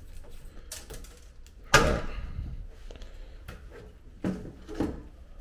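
A few knocks and clunks of handling inside a small fibreglass shower stall. The loudest is a single sharp knock about two seconds in, with softer bumps before and after it.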